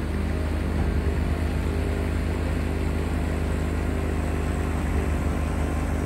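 John Deere 1025R subcompact tractor's three-cylinder diesel engine running steadily under load, driving a 47-inch front-mount snowblower through deep snow.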